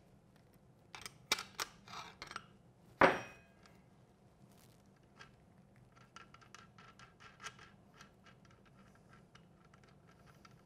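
Open-ended wrench clicking against the nut as a motorcycle turn signal's mounting nut is worked loose, then a single sharp metal clank with a short ring about three seconds in. After that come faint light clicks and ticks as the nut and the signal are handled.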